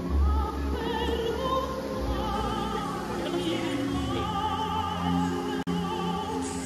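The fountain show's music over loudspeakers: a classical, operatic voice singing long notes with a wide vibrato over an orchestra. The sound cuts out for an instant about two thirds of the way through.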